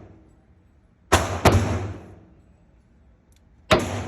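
Three shots from a Kimber K6s .357 Magnum revolver, each a sharp crack with a short echoing tail: a quick pair about a second in, then a single shot near the end.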